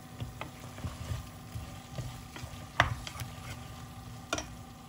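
Wooden spatula stirring and scraping masala-coated chicken pieces around a pressure-cooker pan, with irregular knocks against the pan. The sharpest knock comes about three seconds in and another near the end, over a low frying sizzle on a simmering flame.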